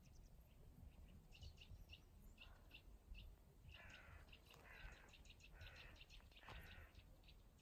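Faint birds: small birds chirping repeatedly, with a crow giving four harsh caws in a row in the middle.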